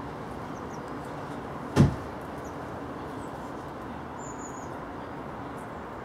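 One sharp, loud knock a little under two seconds in, over steady outdoor background noise, with a few faint high bird chirps and one short high whistled call just past the middle.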